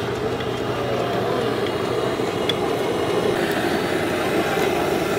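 Steady roar of a gas burner under an omelette pan at a street stall, mixed with street noise.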